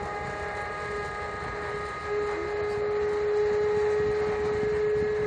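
Rescue-boat davit winch whining steadily as it lowers the boat, growing louder about two seconds in, over a low rumble of ship machinery and wind.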